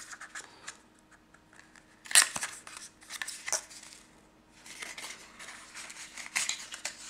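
Stiff white card-stock folder being handled and unfolded: scattered scrapes and rustles of card on card, with a sharp click about two seconds in.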